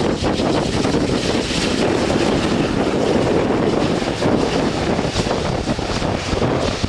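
Jet engines of a twin-engine Boeing 777 rolling along the runway, a steady rumble mixed with heavy wind buffeting on the microphone.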